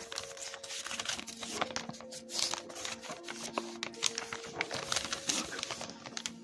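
Paper pages of a LEGO instruction booklet rustling and crinkling as they are flipped, in many short scrapes. Soft background music with a few long held notes plays underneath.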